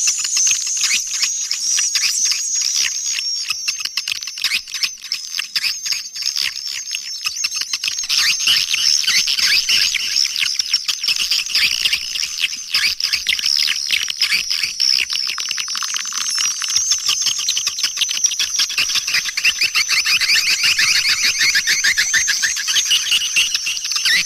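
Dense, continuous twittering of many swiftlets, rapid high chirps overlapping without a break. This is a swiftlet-house lure call (suara panggil), played to draw swiftlets in to roost and nest.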